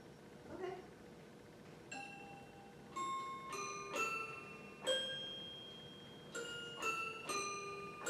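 Toy piano picked out one note at a time: about eight slow, uneven notes, each ringing on and fading before the next.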